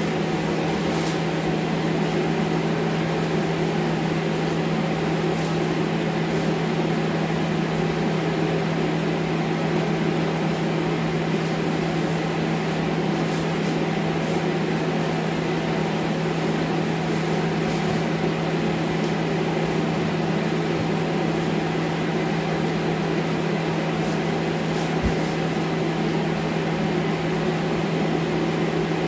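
Air scrubber's fan running with a steady hum, with faint crinkles of plastic sheeting being pushed into a trash bag now and then.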